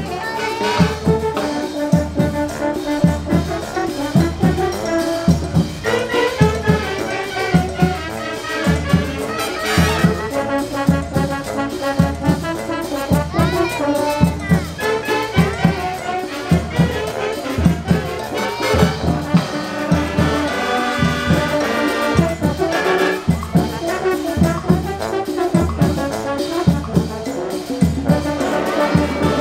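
Brass-led music, trumpets and trombones, over a steady low drum beat of about two strokes a second.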